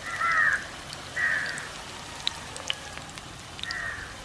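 Hot oil sizzling and crackling steadily as unniyappam balls deep-fry in the wells of a cast-iron appam pan. Three brief high-pitched sounds stand out over the sizzle: one at the start, one about a second in, and one near the end.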